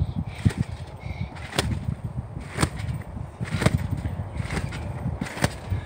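Trampoline mat and springs snapping with each bounce, a sharp crack about once a second, six times, over a low rumble.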